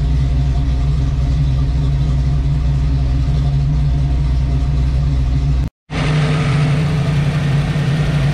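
Ford 5.0 V8 on Holley Terminator X fuel injection, idling steadily. The sound drops out completely for a moment about six seconds in, then the same idle carries on.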